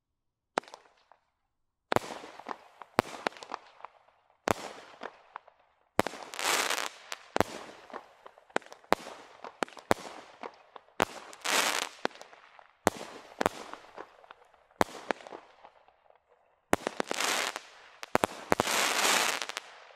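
Standard Fireworks 'Bonfire Bash' firework cake firing a barrage of shots, a sharp bang roughly every second, each trailing off into hissing and crackling bursts. Longer stretches of dense crackle come near the middle and again near the end.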